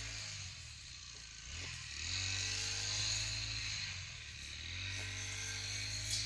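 An engine running steadily, its pitch rising and dropping back in repeated cycles about every three seconds, as if under a changing load.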